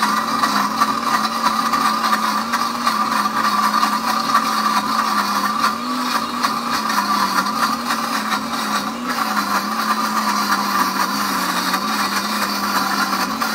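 Pampered Chef Deluxe Cooking Blender motor running loud and steady, grinding roasted peanuts into peanut butter while a tamper pushes them down onto the blades. Its pitch wavers slightly now and then as the thickening paste loads the motor.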